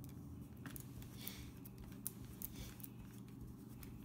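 Faint scattered light clicks of hands handling a cordless drill's chuck and the copper wire clamped in it, over a low steady hum. The drill is not running.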